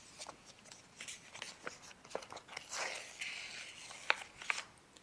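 Small clicks and crackles of a thin vinyl decal skin being peeled from its backing sheet and handled, with a short rasping peel about three seconds in.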